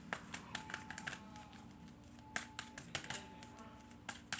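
Tarot cards being handled and laid down on a table: light, irregular clicks and taps, a few a second, over a faint steady hum.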